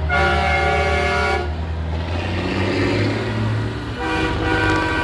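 Semi truck air horns blowing as parade trucks pass, over the low, steady rumble of diesel engines. One multi-tone horn blast lasts about the first second and a half, and another starts about four seconds in.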